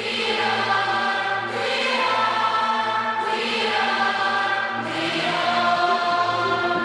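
Music of sustained, choir-like chords, with a rising swell of hiss about every second and a half to two seconds.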